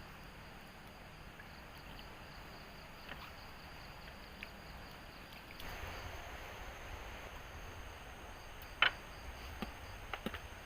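Night forest ambience: a steady hiss of background noise with a thin, high insect drone joining about halfway through, broken by a few sharp clicks or snaps, the loudest a little before the end.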